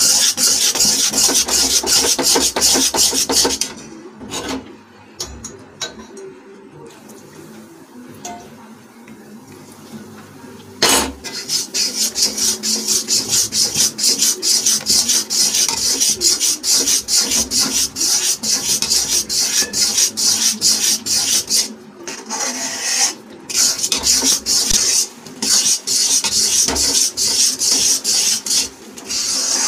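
Metal spatula scraping rapidly around a kadhai as a thick gram-flour and ghee batter is stirred and roasted. The strokes fall quiet for several seconds about four seconds in, then resume fast and steady.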